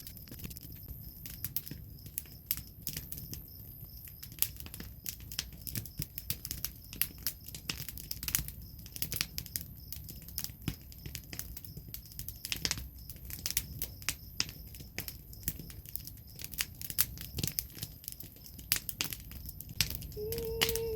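Wood fire crackling and popping with many irregular sharp snaps. Right at the end a woman's voice begins singing a held, slightly falling note.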